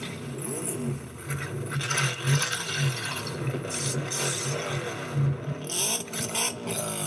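High-performance combustion car engine running, its pitch sweeping up and down as it revs.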